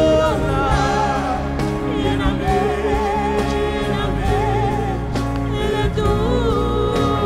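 A woman singing a worship song over sustained instrumental accompaniment, her long held notes wavering.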